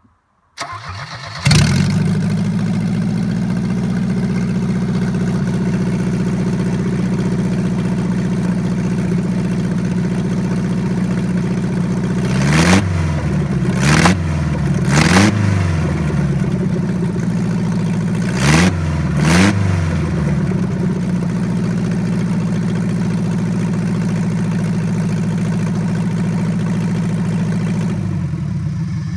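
Mercedes-Benz M102.962 2.0-litre four-cylinder petrol engine cranking briefly, catching and settling into a steady idle. Midway it is revved five times in quick blips, three and then two, and it is switched off at the very end.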